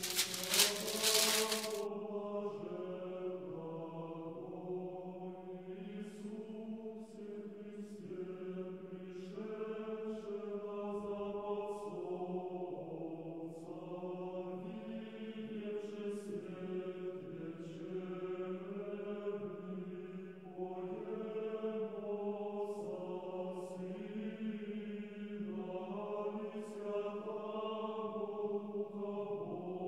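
Background music of slow chant: voices holding long, sustained chords that shift to new pitches every few seconds. A loud rustle fills the first two seconds.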